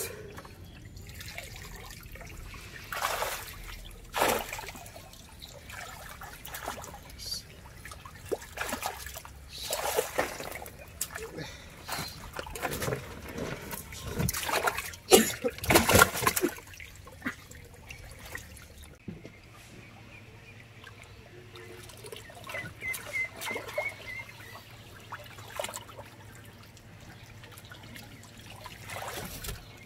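Water splashing and trickling as a hand landing net is worked through pond water and fish are lifted out, with irregular splashes that are loudest about halfway through.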